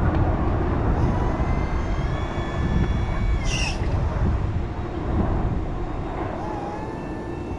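Crown RR5225-35 electric reach truck running: a high whine from its electric drive that glides up and later back down in pitch, over a low rumble. A short hiss comes about three and a half seconds in.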